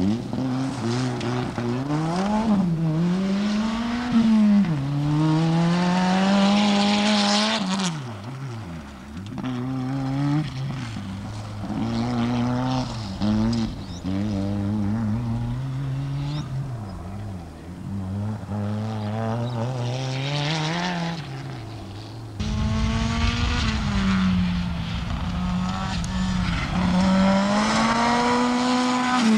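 Rally car engines revving hard as the cars slide past on a gravel stage, one car after another. The engine pitch climbs and drops repeatedly with gear changes and throttle lifts, over a hiss of gravel thrown up by the tyres.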